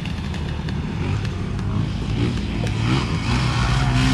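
Car engine revving hard under load, its pitch climbing over the last two seconds, as a two-wheel-drive vehicle struggles to drive through and is close to getting stuck.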